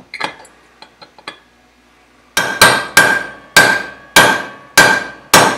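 A hammer striking a punch to drive the roll pin that retains an AR-15 upper receiver's forward assist. A few light clicks come first, then, a little before halfway, about seven sharp metallic strikes follow in quick succession, each ringing briefly.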